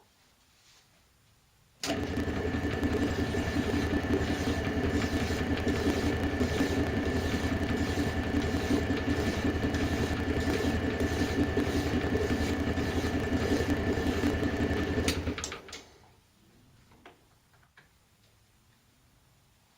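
An electric power tool's motor switched on abruptly, running steadily with a low hum and a high whine for about thirteen seconds, then switched off and spinning down within about half a second.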